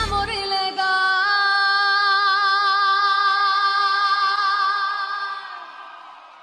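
A female pop singer holding one long note with vibrato, the band dropping away under it so the voice is left alone, fading out at the close of a song.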